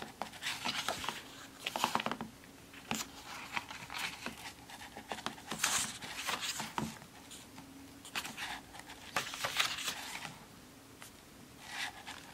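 Pages of a thick photo book being turned by hand, one after another: a run of short paper rustles and swishes with small sharp flicks, at an uneven pace.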